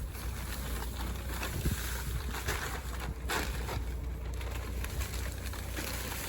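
Wind rumbling on the microphone, with a few soft scrapes and rustles of sand being worked into the gaps beneath paving slabs near the middle.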